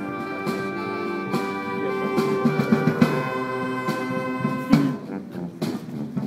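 Marching band playing live: brass holding sustained chords, with occasional loud drum hits, two of the strongest about three and four and a half seconds in.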